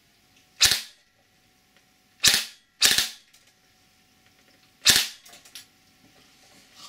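3D-printed FGC-6FA open-bolt gas blowback airsoft gun, fitted with a metal-weighted medium cycle bolt, firing four times. Each is a sharp pop with the bolt slamming and a short ring-out. The shots come about half a second in, twice in quick succession a little past two seconds, and once near five seconds.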